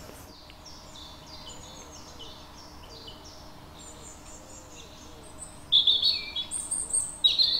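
Songbirds singing: a quick, even run of repeated high notes, then louder song phrases near the end.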